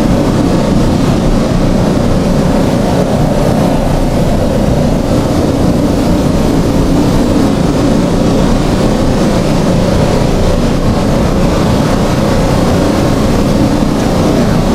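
Loud, steady low roar of wind and a moving intercept vehicle, with no distinct events.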